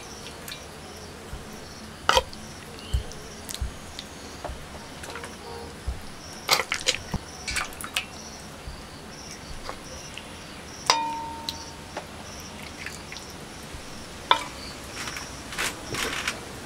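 Steel ladle clinking and scraping against brass plates and an iron wok while curry is served: a string of sharp clinks, one about eleven seconds in ringing on briefly. Crickets chirp steadily behind.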